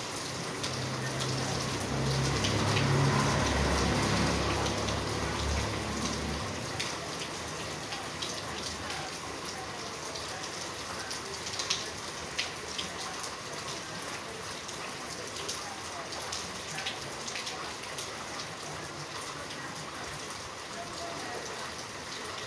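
Steady rain falling, an even hiss with scattered sharp drop taps. A low rumble swells in the first few seconds and fades out about six seconds in.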